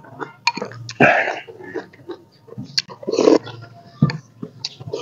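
Close-up eating sounds: noodle soup sipped and slurped off a spoon and chewed, heard through a clip-on microphone. There are two louder slurps, about a second in and around three seconds in, with wet mouth clicks and chewing between them.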